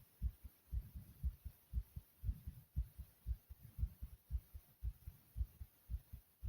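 A person's heartbeat pounding hard: regular low thumps about twice a second.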